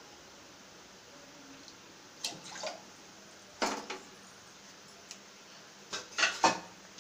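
Stainless steel kitchenware clinking and knocking at a gas stove: a couple of light clinks about two seconds in, a sharper knock a little later, and the loudest clanks near the end.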